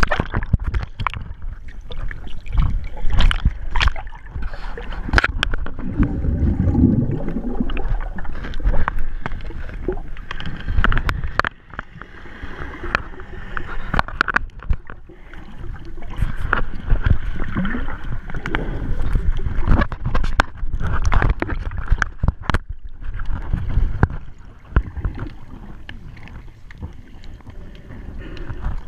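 Underwater sound through a GoPro's waterproof housing: muffled rushing and gurgling of moving water, with frequent sharp clicks and knocks as divers grapple with a speared grouper, and a stronger low rush about six seconds in.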